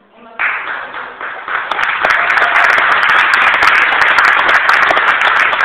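Audience applauding: the clapping breaks out suddenly about half a second in and swells over the next two seconds into loud, steady applause.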